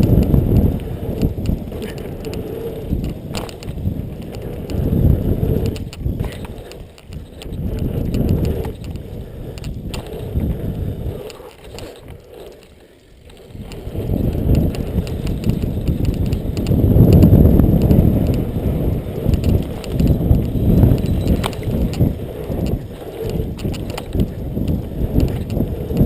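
BMX bike riding fast over a dirt track: low tyre rumble and wind buffeting the camera's microphone, swelling and fading, with a brief lull about halfway through.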